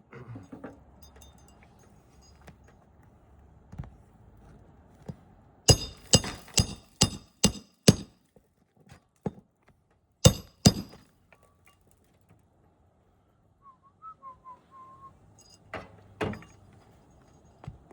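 Hammer blows on roof shingles: a quick run of about six strikes, then two more a few seconds later, then two more near the end, with small taps and clinks between.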